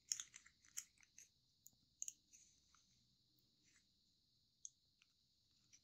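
Folded kami origami paper crinkling faintly as fingers press and shape it: a few short crackles in the first two seconds or so, then one more about four and a half seconds in.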